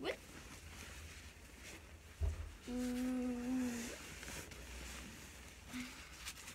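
A girl hums one steady note for just over a second, a little past the middle. Just before it comes a single low thump, the loudest sound, and soft handling noise from the sleeping bag fabric runs through the rest.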